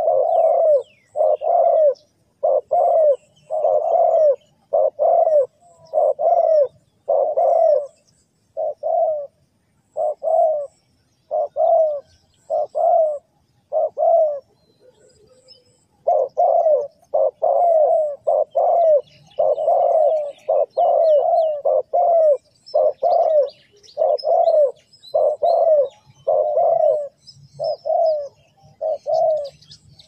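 Spotted dove cooing: a long run of short, low coos, about two a second, with a brief pause about halfway through. Faint high chirps of small birds sound behind them.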